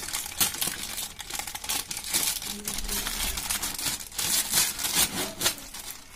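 Plastic packaging of a new washing machine drive belt crinkling and rustling as it is torn open by hand, in many quick irregular strokes.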